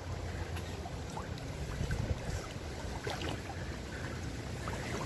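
Wind buffeting the microphone in a steady low rumble, with water sloshing and splashing in short bursts as someone wades in shallow lake water.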